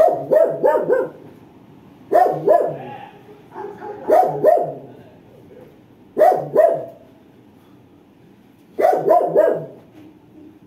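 A dog barking repeatedly, in bouts of two to four quick barks about every two seconds.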